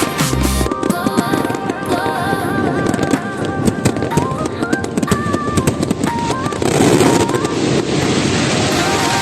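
Fireworks popping and crackling in quick succession over music with a stepping melody; from about seven seconds in, a dense steady hiss fills in under the music.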